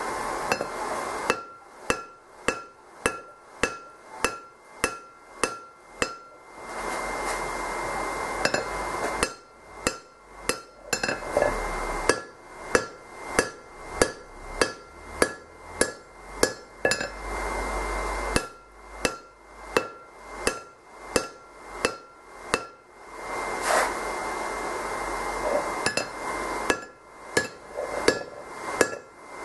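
Hand hammer striking a red-hot steel hammer head on an anvil, about two blows a second in runs of several strikes with short pauses between them. Each blow gives a short metallic ring.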